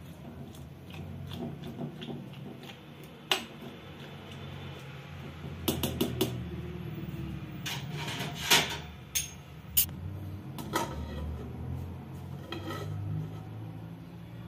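Metal spoon stirring chopped radish and radish greens in an aluminium pot, with scattered clinks and scrapes of spoon against the pot. The sharpest clinks come about halfway through, over a steady low hum.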